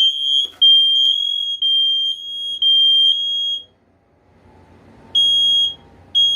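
First Alert smoke alarm piezo horn sounding a shrill, high beep in long blasts that stop about three and a half seconds in. After a short gap it resumes with two short beeps a second apart near the end, the start of the alarm's beep pattern during a test.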